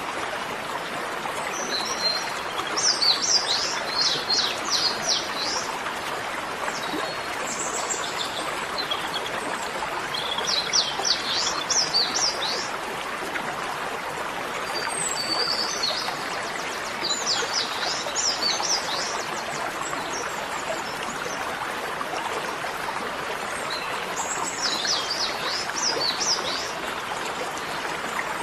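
A songbird sings a fast series of high, quick notes in short phrases every several seconds, over the steady rush of running water.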